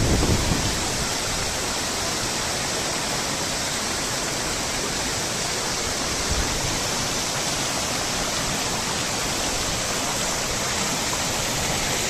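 Waterfall and the rocky stream below it: a steady, unbroken rush of falling and tumbling water.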